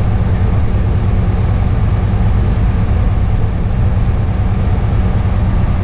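Box truck's engine idling, a steady low rumble that holds an even level throughout.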